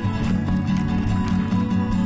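Background music: acoustic guitar strumming with a steady beat.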